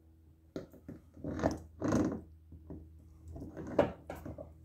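Handling noise as a pneumatic wheel is picked up and slid onto a threaded-rod axle: a few short scraping rustles and a sharp knock near the end.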